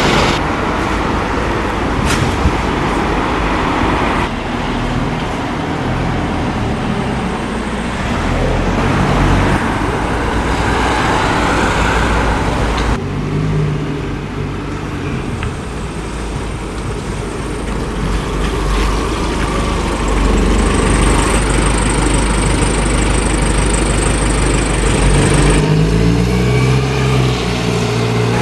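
Road traffic with diesel single-deck buses driving past in a town street, the sound changing abruptly at several cuts. Near the end a bus engine rises in pitch as the bus pulls away.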